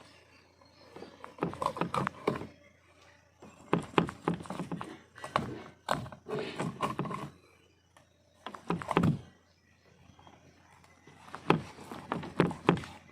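Knife strokes knocking on a cutting board as a fish is cut up, in bursts of several quick chops separated by pauses of a second or two.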